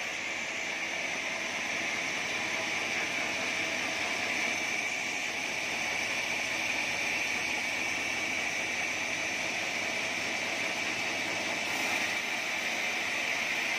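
Sawmill band saw ripping lengthwise through a squared acacia timber fed on a carriage: a steady high whine over a continuous hiss.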